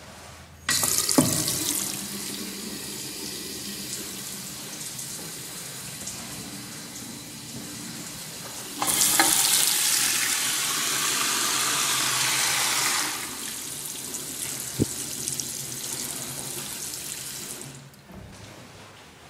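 A faucet running into a Kohler sink basin, with steady water splashing. The water starts suddenly about a second in, runs louder for a few seconds in the middle, and stops near the end.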